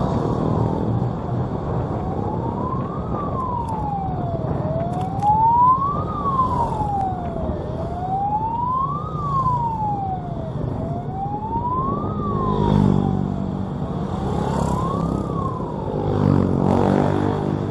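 A wailing siren whose pitch rises and falls smoothly, peaking about every three seconds. It plays over the steady running of motorcycle engines and road noise.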